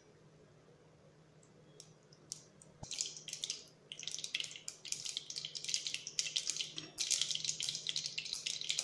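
Mustard seeds starting to splutter in hot oil in an aluminium pressure cooker. A few scattered pops come about two seconds in, then build into dense, continuous crackling that is thickest from about seven seconds.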